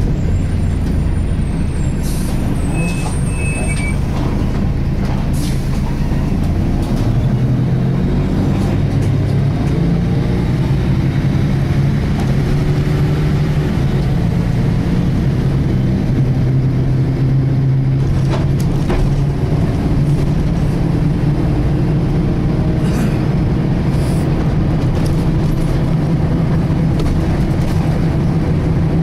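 Volvo B10BLE single-deck bus heard from on board while under way: the engine and driveline run with a steady low rumble, and a pitched whine from the differential climbs as the bus gathers speed, then holds. A few brief rattles are heard along the way.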